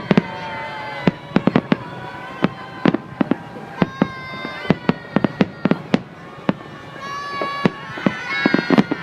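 Fireworks salute going off: many sharp bangs and cracks in quick, uneven succession, several a second at the busiest moments.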